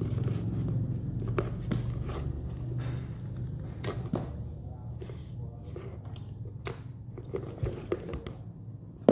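Handling noise as a MacBook power adapter's white cable is unwound: scattered light clicks and knocks of cable and plastic, over a steady low hum.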